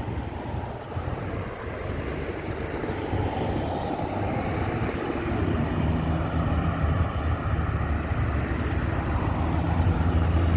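Road traffic: vehicles driving past, with a low engine hum from a nearby vehicle growing louder through the second half.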